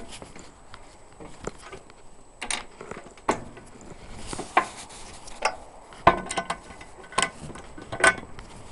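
Irregular knocks and clanks on the steel hull of a Saladin armoured car, about eight in all, as someone moves about and handles things on top of it. A few of the later knocks ring briefly like struck metal.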